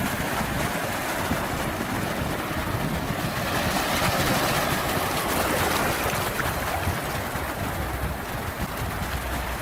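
Sea waves washing in, a continuous rushing that swells a little midway and then eases.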